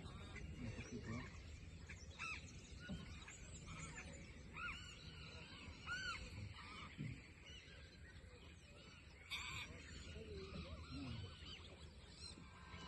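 Several birds calling with short, arched honking notes, one after another and overlapping, over a steady low rumble.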